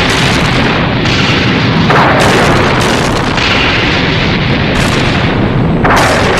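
Designed monster sound effect for King Ghidorah: a continuous loud, rumbling blast with a hiss over it, and two falling swooshes, about two seconds in and again near the end.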